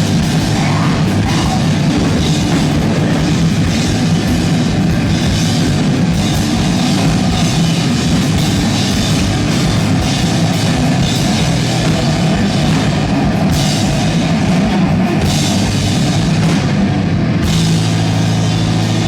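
Noisecore band playing live and loud: pounding drum kit and cymbals under a dense wall of sustained low amplified tones.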